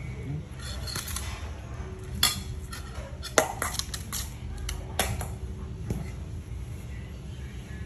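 Metal spoon clinking and scraping in a stainless steel bowl of rice, a series of irregular sharp clinks with the loudest about three and a half seconds in.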